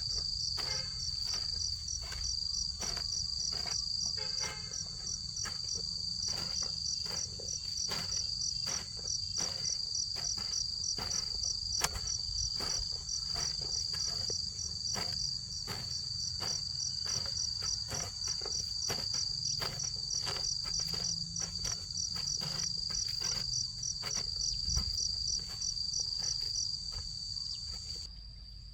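Crickets chirping steadily in a high-pitched, evenly pulsing chorus, with many short clicks and taps scattered throughout. The chirping stops shortly before the end.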